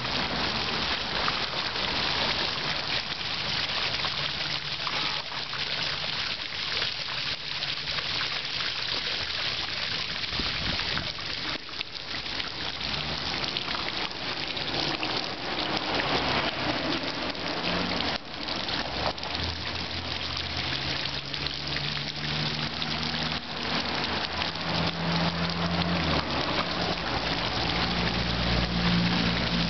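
Fountain jet spraying water that splashes back into a shallow pool: a steady, even rain-like hiss of falling water. A low rumble joins in during the second half.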